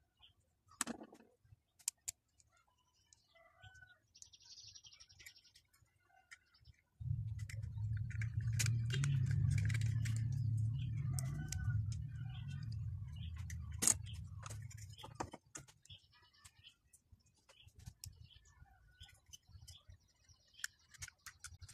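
Hard plastic toy parts clicking and knocking as they are handled and fitted together, with birds chirping in the background. A steady low rumble runs for about eight seconds in the middle and is the loudest sound.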